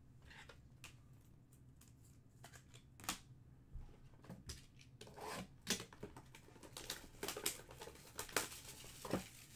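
Plastic shrink-wrap being torn and crinkled off a sealed trading card box as it is handled: a few light taps and clicks, then busier crackling and rustling from about halfway through.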